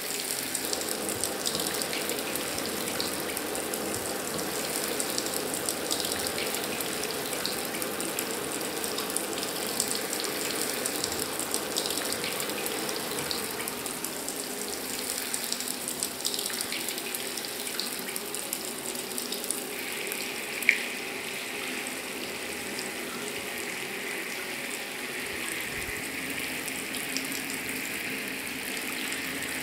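Shower running steadily, water streaming down onto a person. About two-thirds of the way through the spray turns a little hissier, and a single short click stands out.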